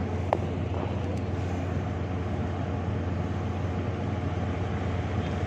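Steady low engine drone, with one short sharp click about a third of a second in.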